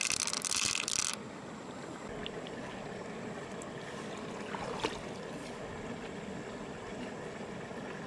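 Red pearls poured from a hand, clattering into an open freshwater mussel shell for about the first second, over a steady rush of flowing water. A single short click a little before five seconds in.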